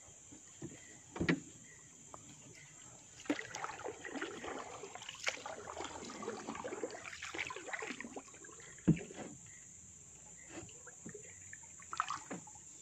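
Small wooden boat being paddled and shifted about: water dripping off a wooden paddle, light rustling and clatter of gear in the boat, and two sharp knocks, about a second in and again around nine seconds.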